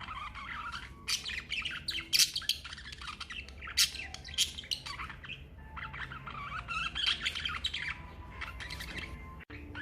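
A flock of budgerigars chirping and chattering without a break, with a few louder, sharp calls in the first four seconds.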